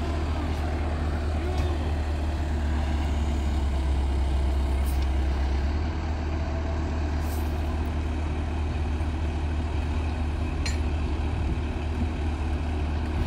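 Engine of an on-track rail-handling machine running steadily, a low rumble, with a few faint short ticks over it.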